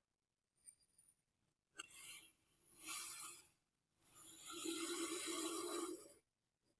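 A blade cutting and scraping through kinetic sand with a gritty rasp, in three strokes: a short one, a second about a second later, and a longer one lasting about two seconds.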